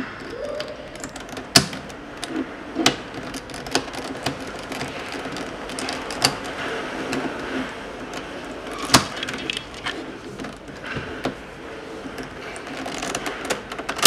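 Plastic Rubik's Cube pieces clicking and knocking as the last corner pieces are spread apart and snapped into place, with scattered sharp clicks, the loudest about a second and a half and about nine seconds in.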